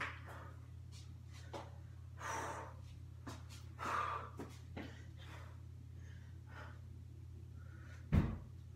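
A young man breathing hard in sharp, noisy breaths while holding flexing poses, over a steady low hum. A single loud thump comes near the end.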